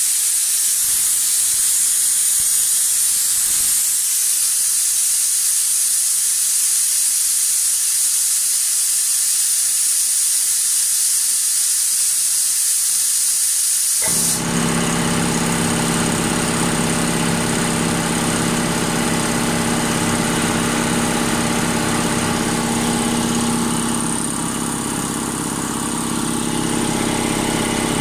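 Compressed air hissing steadily out of a 50-litre air compressor tank as its pressure falls. About halfway through, the compressor switches on, cutting in at low tank pressure, and its motor and pump run steadily to refill the tank.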